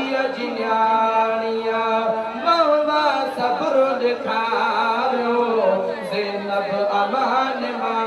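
A man singing a Sindhi naat into a microphone, holding long notes and winding them through ornamented melismatic runs.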